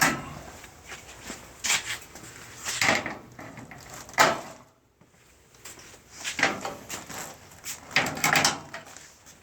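Wrench working a bolt on a steel garage door panel: short metallic scrapes and clanks in irregular strokes, about seven in all, with a brief pause about halfway through.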